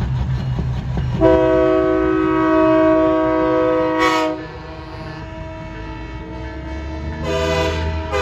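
Truck air horn, the train-style kind, blowing a long blast of several notes sounding together, starting about a second in and held for about three seconds. A second blast begins near the end. A heavy engine rumbles underneath.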